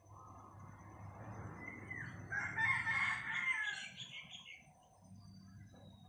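Rooster crowing once: one long crow that builds, is loudest about halfway through, and fades out shortly after.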